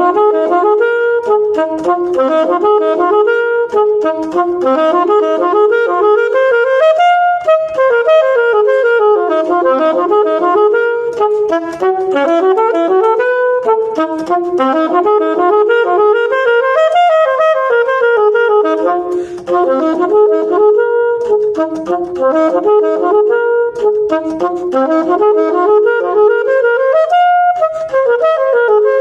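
Solo saxophone playing a fast étude in quick running notes. The line climbs and falls in waves, cresting about every ten seconds, without accompaniment.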